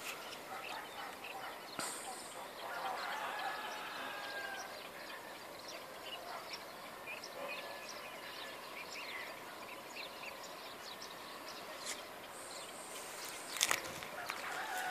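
Many small birds chirping and calling at once in a morning dawn chorus over a faint steady background hiss, with a couple of sharp clicks near the end.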